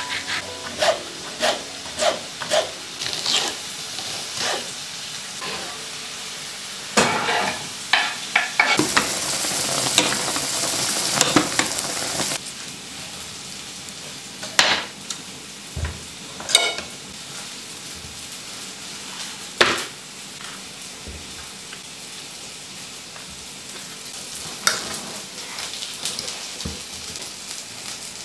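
Kitchen knife cutting vegetables on a wooden chopping board: scattered sharp taps of the blade on the wood. About a third of the way in there are a few seconds of steady hiss.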